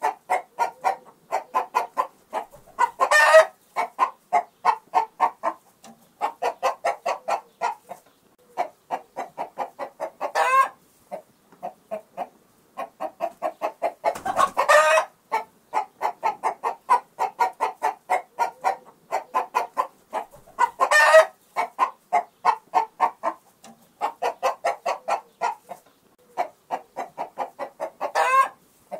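Chicken clucking: quick runs of clucks, about four or five a second, broken five times by a louder rising squawk.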